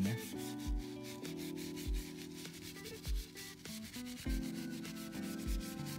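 Horsehair detailing brush scrubbing a leather steering wheel with leather cleaner, its bristles rasping over the leather in quick back-and-forth strokes to agitate embedded dirt out of the grain.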